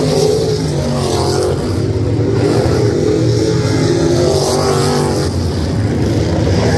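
Engine of a winged open-wheel dirt-track race car running at low speed, its note wavering up and down over a steady low rumble.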